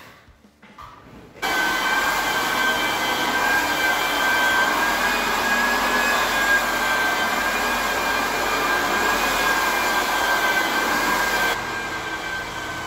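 Floor-sanding equipment with its dust-collection vacuum running steadily: a constant motor whine over a rush of air. It starts suddenly about a second and a half in and turns quieter near the end.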